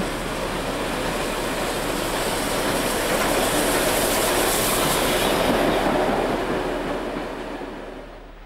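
NSW C32-class steam locomotive 3112 and its carriages passing close by, the running noise of locomotive and rolling stock swelling as the train goes under and then fading away near the end.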